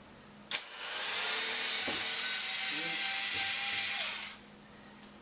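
A power drill runs steadily for about three and a half seconds, with a click just before it starts. It is backing out the missed screw that still holds the dishwasher in its opening.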